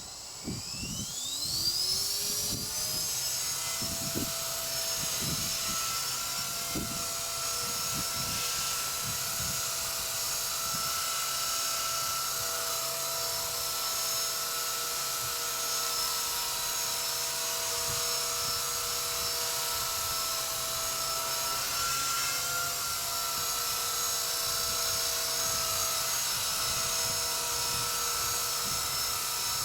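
Walkera V120D02S micro RC helicopter's electric motor and rotors spooling up with a rising whine over the first couple of seconds, then holding a steady high whine in hover. Wind buffets the microphone in low thumps during the first several seconds.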